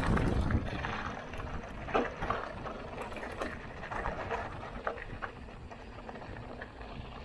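Giant Trance X 29 full-suspension mountain bike rolling down a loose gravel and rock track. The tyres crunch over stones and the bike clicks and rattles sharply as it hits rocks, over a low wind rumble on the microphone that is strongest in the first second.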